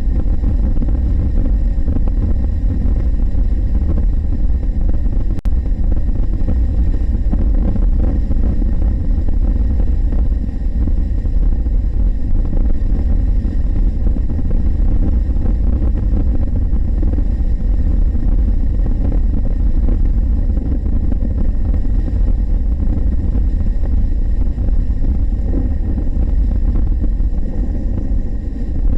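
Steady, loud riding noise of a 2023 Honda NC750X at highway speed: a deep rumble of wind on the helmet-mounted camera's microphone over the bike's 745 cc parallel-twin engine, with no gear changes or revving.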